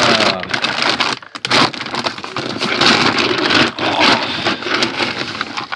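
Plastic dry dog food bag crinkling and rustling loudly as it is handled and opened.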